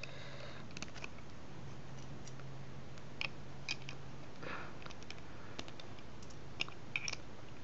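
Plastic Lego bricks clicking and tapping as they are handled and pressed onto a baseplate, a dozen or so faint irregular clicks over a steady low hum.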